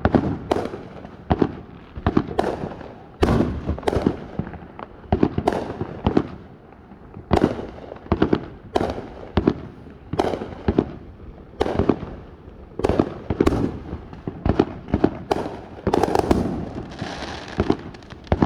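Fireworks going off in quick succession: sharp bangs one or two a second at uneven spacing, each trailing off in an echoing rumble, with a burst of hissing crackle near the end.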